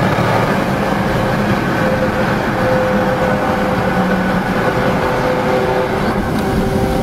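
Car driving fast on a highway, heard from inside the cabin: a steady tyre and wind roar with a low engine hum, partly through a road tunnel.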